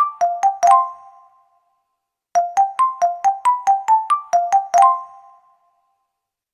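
Electronic keyboard with an electric-piano sound playing a short sound-effect jingle by ear: quick, sharply struck notes, about four a second, stepping between two pitches that climb. The phrase ends just after the start, then plays again from about two seconds in and dies away, with no more notes after that.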